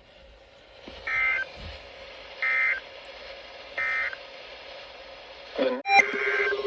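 Emergency Alert System end-of-message data bursts: three short, shrill two-tone modem squawks about 1.3 s apart, marking the close of the alert. A sharp click comes near the end, and another data burst begins just after it.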